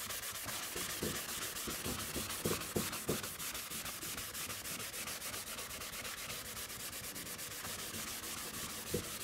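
Chalk being wiped off a blackboard by hand with a small rag: fast, even back-and-forth rubbing strokes of cloth on the board, with a few light knocks.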